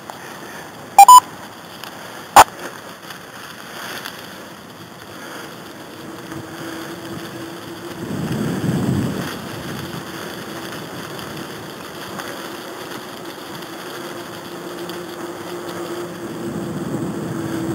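Wind rushing over the microphone and wheels rolling over a leaf-covered trail during a ride, with a faint steady hum. About a second in comes a short, loud double beep, and a sharp click follows a second or so later.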